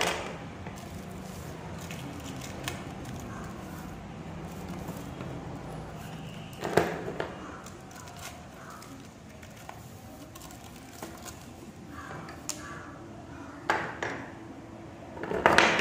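Bangles clinking and knocking as they are handled and slid onto a paper-covered cardboard tube, with scattered light clicks and a few louder clacks, about seven seconds in, around thirteen seconds and near the end.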